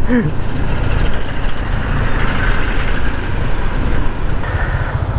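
Motorcycle on the move: a steady rush of wind and road noise over the engine.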